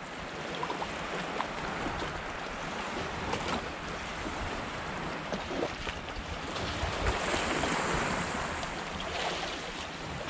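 Sea water washing steadily against a breakwater, swelling a little about seven seconds in, with a few faint clicks.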